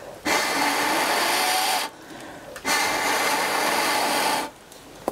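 A person blowing hard through a metal tube into wood-fire embers to get the fire going: two long, steady blowing hisses of nearly two seconds each, with a short pause for breath between them.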